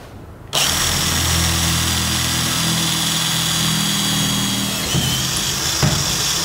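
Handheld electric drill with a 5 mm bit boring a pilot hole into soft aluminium. It starts about half a second in and runs steadily under load, its whine shifting slightly in pitch about five seconds in.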